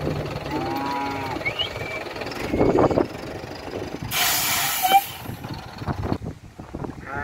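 Cattle inside a wooden-sided cattle truck: one short moo about half a second in, then heavy thumps of hooves and bodies against the truck's boards. About four seconds in comes a loud burst of hissing air from the truck's air brakes, lasting under a second.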